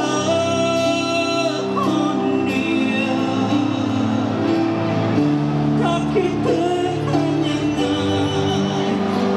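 Live band performing, with a male lead singer over electric guitars, keyboard and drums, heard from the audience in a large hall.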